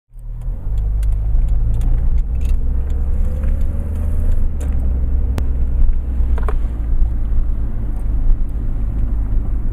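Car engine and road noise heard inside the cabin while driving: a steady deep rumble, with a few light clicks.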